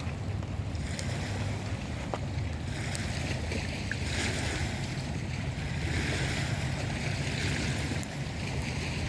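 A fire burning with a few sharp crackles and pops, over steady wind rumbling on the microphone.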